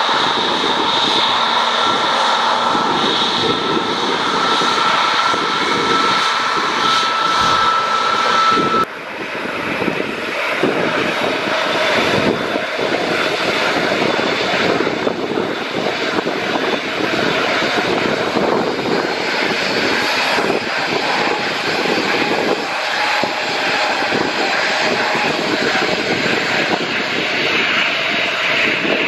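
Airbus A321neo's Pratt & Whitney PW1100G geared turbofans running at taxi idle: a loud, steady jet rush with a thin steady whine. The sound cuts abruptly about nine seconds in, and the jet noise carries on without the whine as the airliner passes broadside.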